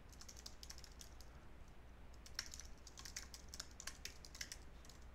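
Faint typing on a computer keyboard: an irregular run of soft key clicks that comes thicker in the second half.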